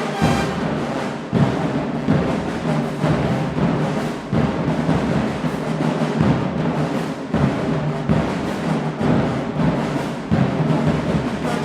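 Marching band playing, with heavy drum hits punching through sustained brass.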